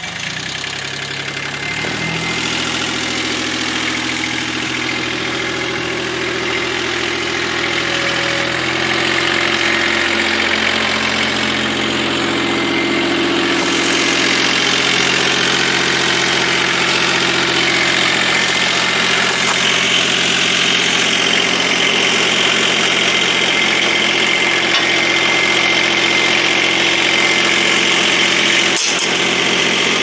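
Gehl 3410 skid steer's engine settling into a steady idle in the first couple of seconds, then running evenly, its note shifting slightly about eight seconds in. A single sharp click sounds near the end.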